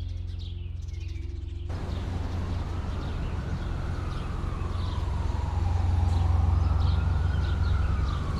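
Ambient intro soundtrack: a low steady drone with birds chirping over it. About two seconds in, a wind-like whoosh comes in, carrying a tone that slowly rises and falls.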